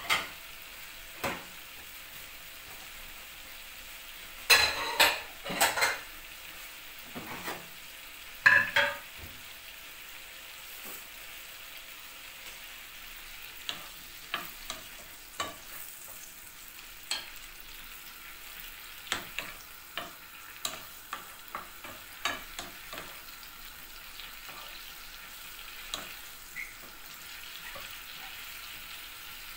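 Shrimp frying in a non-stick pan with a steady sizzle, stirred with a wooden spoon that knocks and scrapes against the pan. The knocks are loudest in clusters about five and eight seconds in, then come as lighter scattered taps.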